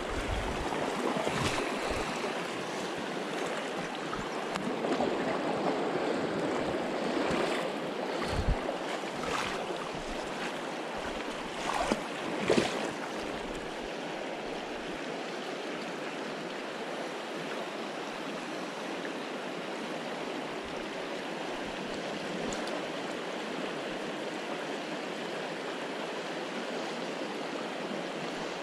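Upper Deschutes River running fast and shallow around the logs, a steady rushing of current. A few short knocks and rustles come in the first half.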